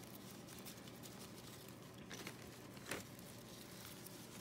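Faint rustling of pothos leaves and soft potting soil being pushed into gaps by hand, with a couple of small clicks about two and three seconds in.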